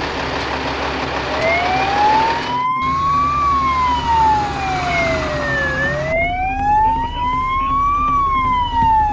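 Fire engine siren sounding a slow wail, its pitch rising and falling in long sweeps of about two seconds each, over a low steady hum.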